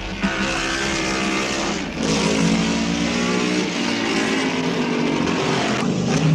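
A 1950s Grand Prix racing car engine running hard at high revs. Its note breaks and picks up again about two seconds in and once more near the end.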